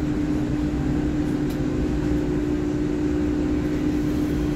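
An EMU3000 electric multiple unit standing at rest with its equipment running, giving a steady hum: one constant low tone over a low rumble.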